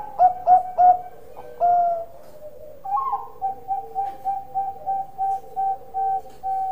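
Zebra dove (perkutut) cooing. It gives a few loud short coos and a longer one in the first two seconds, then a steady run of quick staccato notes, about three a second.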